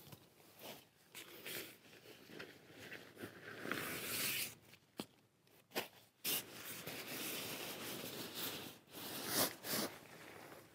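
Camping gear's fabric being handled: rustling and scraping in irregular bursts, with two sharp clicks about five and six seconds in.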